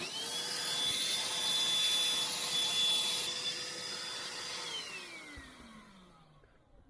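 Vacuum cleaner switched on and running at a steady pitch, then switched off about four and a half seconds in, its motor winding down with a falling whine.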